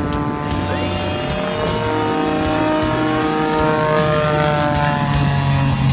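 Single-engine aerobatic propeller plane's engine droning steadily. Its pitch rises gradually for the first few seconds, then falls away as the plane flies past.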